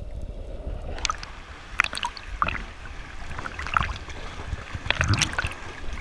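Water heard through a camera held in the sea: a muffled underwater rumble with scattered clicks and bubbling as snorkelers kick with their fins, then water sloshing and splashing once the camera comes up at the surface partway through.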